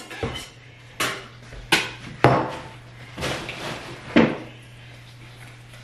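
Kitchen things knocking against a plastic mixing bowl and the tabletop as a wire whisk is put to use: about five separate sharp knocks.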